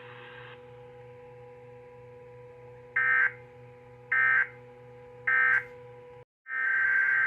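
Emergency Alert System SAME digital data bursts: three short, harsh, identical bursts about a second apart, the end-of-message code closing the previous alert. After a brief dropout, a longer data burst near the end begins the header of the next alert. A steady electrical hum runs underneath.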